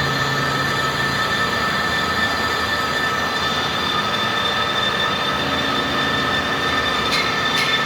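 Metal lathe cutting steel: a steady high-pitched whine with a screeching edge over the running machine, and a few sharp ticks near the end.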